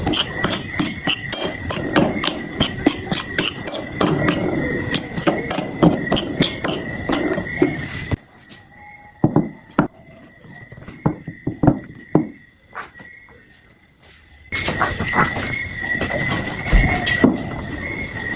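A fast, irregular run of sharp knocks and clicks over a steady high whine. It thins to a few scattered knocks for about six seconds in the middle, then picks up again near the end.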